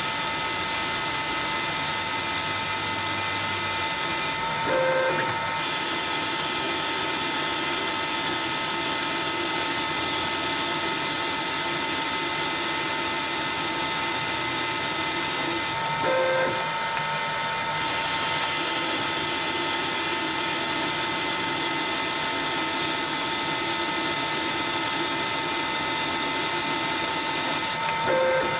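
CNC Myford ML7 lathe running under program control, a steady machine whine with several held tones over an even hiss. A brief click and short change in tone comes about every 12 seconds, three times.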